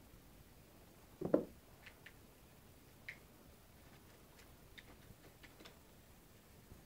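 Kitten jumping down from a carpeted stair step and landing with a soft thump about a second in, followed by a few faint, light ticks.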